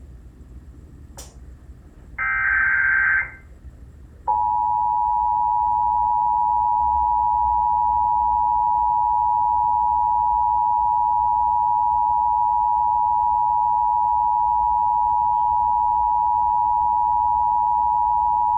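Emergency Alert System Required Monthly Test heard over radio. There is a click, then about a second of screechy digital header data tones, then about four seconds in the EAS two-tone attention signal (853 and 960 Hz) comes in and holds steady. The attention signal announces an alert, here the monthly test.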